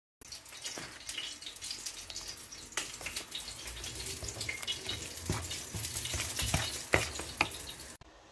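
Wooden spoon stirring a wet, grainy mixture in a plastic bowl: a steady wet scraping and squishing with sharp knocks of the spoon against the bowl now and then. It stops abruptly near the end.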